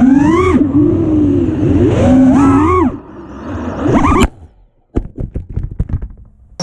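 FPV quadcopter's brushless motors (BrotherHobby Returner R5 2306 2450kv on Cyclone 5051 props) whining, the pitch rising and falling with the throttle. A last rising whine ends in a sharp knock and cuts off suddenly about four seconds in. About a second later comes a run of short irregular clicks and rattles as the quad sits on the corrugated metal roof.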